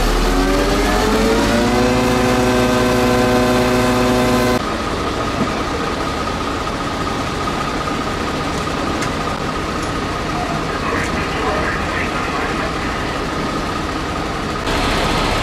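Fire engine's engine dips and then rises in pitch, holding at a steady fast run. After a cut about four and a half seconds in, a lower, steady engine rumble with a thin high whine.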